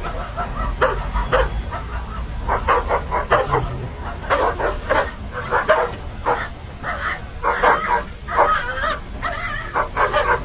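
Dogs barking and yelping in many short, irregular bursts, as in a scuffle between dogs.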